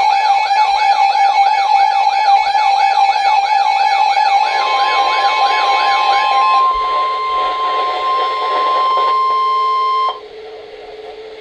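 Weather alert radios sounding their alarms for a Severe Thunderstorm Warning: a fast warbling siren, about two or three sweeps a second, over a steady beep tone. About halfway through, the steady NOAA Weather Radio 1050 Hz alert tone joins in. The warble stops about two-thirds of the way in, and the 1050 Hz tone cuts off abruptly near the end, leaving a fainter steady lower tone.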